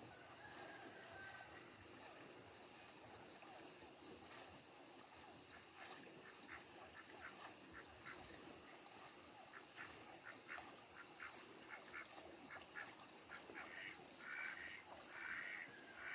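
Faint outdoor rural ambience: a steady high insect buzz with a regular pulsing chirp. From about six seconds in, a run of short repeated bird calls comes in, fuller and louder near the end.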